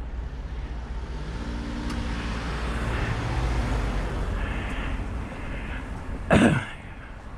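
A motor vehicle passes, its sound swelling to a peak about three and a half seconds in and then fading, over a steady low engine rumble. A brief loud sound about six seconds in.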